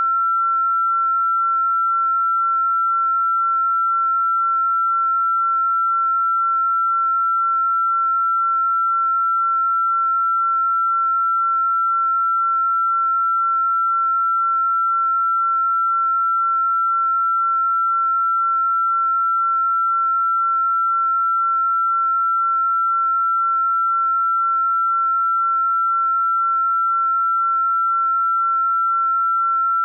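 A single pure electronic sine tone, fairly high-pitched, held perfectly steady without any change in pitch or loudness. It is a synthesized 'healing frequency' tone played for sound therapy.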